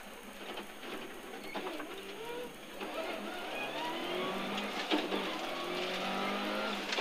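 Subaru rally car's engine heard from inside the cabin, accelerating with its pitch rising. There is a brief break at a gear change about five seconds in, then it climbs again.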